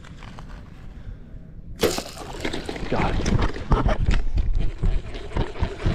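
Footsteps and the rustle of leafy brush scraping past, with knocks and clatter of the bow being handled, starting suddenly about two seconds in.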